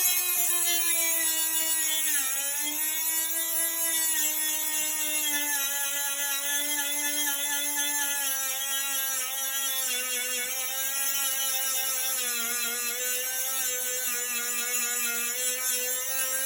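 A handheld power tool's motor whining as it grinds surface rust off a steel car dashboard. Its pitch sags whenever it is pressed into the metal, with a sharp dip about two seconds in and a lower stretch past the middle before it picks up again near the end.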